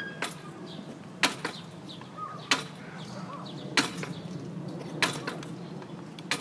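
A series of sharp knocks or clicks repeating about every second and a quarter, over a steady low hum.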